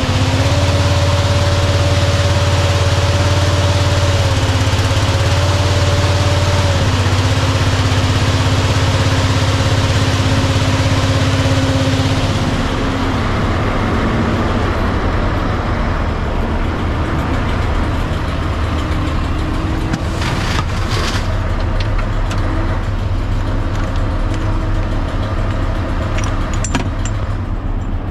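Fire truck engine running at raised speed with a steady whine that shifts in pitch a few times. About twelve seconds in it settles to a quieter, lower running, with a few clicks later on.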